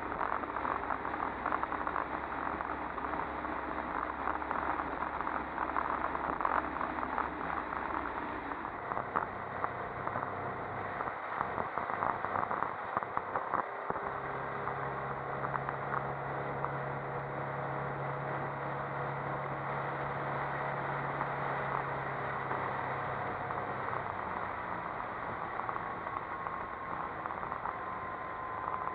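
Motorboat under way, its MerCruiser 140 hp 3.0-litre four-cylinder sterndrive engine running steadily with water and wind rushing past the hull. Crackly wind buffeting fills the first few seconds. About halfway in the sound turns steadier, with a low, even engine tone.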